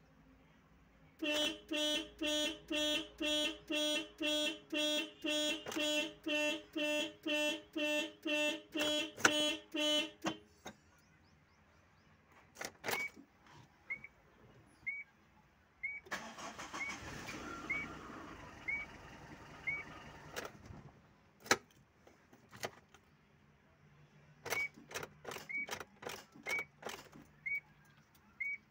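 Car alarm sounding in loud, even beeps, about two a second, for about nine seconds before it stops. Then come scattered clicks, a soft tick about every three-quarters of a second, and a few seconds of whirring noise, while the engine stays off.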